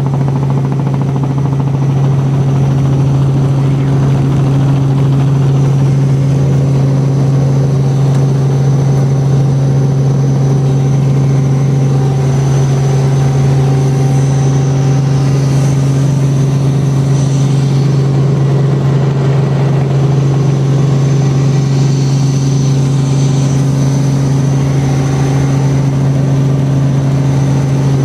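Helicopter's engine and rotor drone heard inside the cabin: a loud, steady low hum with a faint high whine above it, unchanging throughout.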